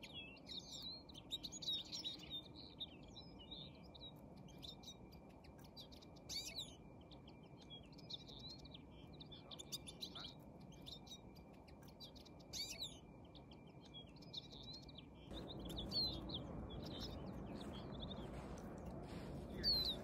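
Small finches chirping and twittering over and over, short high calls and quick gliding notes. A faint steady high tone runs beneath them until about three-quarters through, when a low rushing noise comes in.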